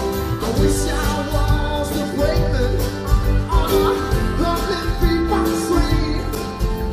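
Live band playing: acoustic and electric guitars, electric bass, keyboards and drums, with a man singing lead.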